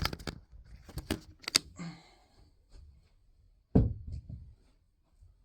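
Handling noises from a bicycle chain and parts being moved about: a few sharp clicks in the first two seconds, then one loud thump about four seconds in as something is set down.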